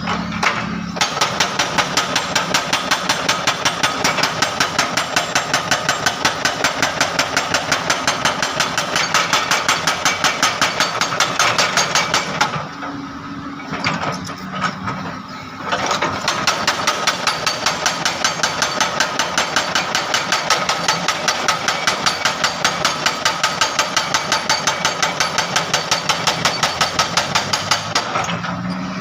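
Excavator-mounted hydraulic breaker hammering asphalt in rapid, even blows, several a second, over the excavator's running diesel engine. The hammering pauses for about three seconds midway, leaving the engine alone, then resumes and stops near the end.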